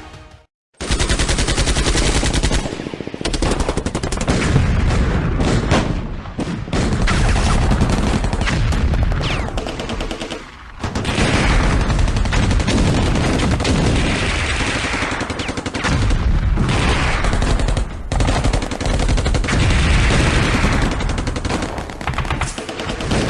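Airsoft replica guns firing in rapid, automatic bursts, almost without let-up, starting suddenly after a brief silence.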